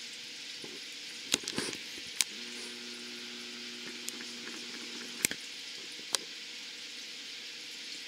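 Quiet steady hiss of basement room tone, broken by a few sharp clicks, with a faint low two-note hum lasting about three seconds in the middle.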